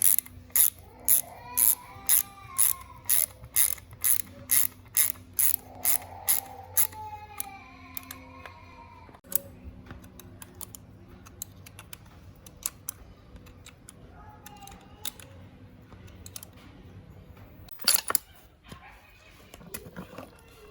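Ratchet wrench clicking in even strokes, about two a second, for the first seven seconds or so, then fainter scattered clicks, with one loud knock about eighteen seconds in.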